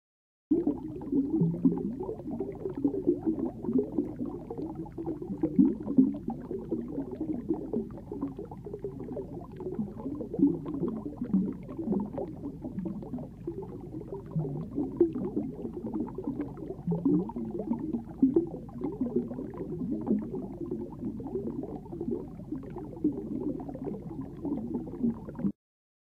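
Muffled underwater bubbling and gurgling, as picked up by a submerged camera: an irregular stream of small blips. It starts abruptly and cuts off abruptly shortly before the end.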